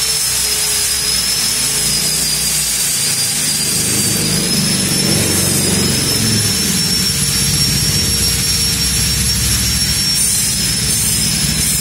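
TIG welder running on stainless steel with filler rod fed in: a steady high-pitched whine over a constant hiss, with a low hum underneath.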